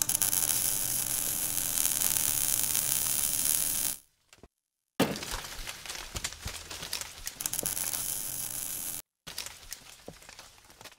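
Channel-logo intro sound effects: about four seconds of loud crackling hiss over a hum as sparks drift, a brief gap, then a sudden hit followed by crackling that dies away as the logo settles.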